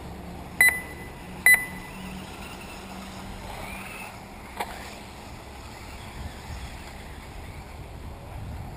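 Two short, loud electronic beeps about a second apart near the start, then the faint whine of 1/10-scale RC buggies running on the dirt track, rising briefly about four seconds in, with a single click just after.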